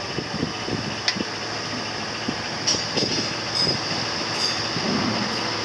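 Steady machinery drone with several short, high squeaks and a few light knocks about halfway through.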